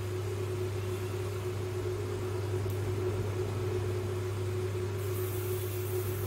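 Steady electric hum of a kitchen fan motor, a low drone with a constant higher tone over it and a light hiss.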